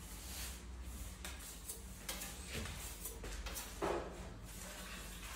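Steel trowel scraping and spreading decorative marble-effect plaster across a wall, in several short irregular strokes.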